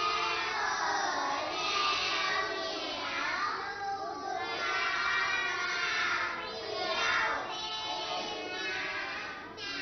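A group of children reciting a Thai rhyming verse in unison, in a sing-song chant.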